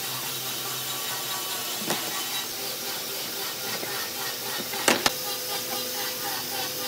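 Steady hiss of workshop background noise with a few sharp clicks and knocks of tools being handled on a wooden workbench; the loudest, a quick pair of knocks, comes about five seconds in.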